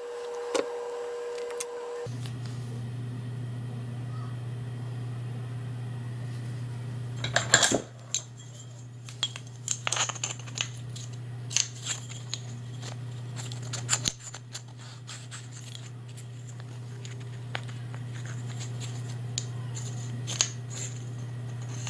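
Metal parts of a U-matic video head drum clicking, knocking and scraping against each other as they are twisted and worked apart by hand, a tight fit. A steady low hum sets in about two seconds in and runs under the clicks.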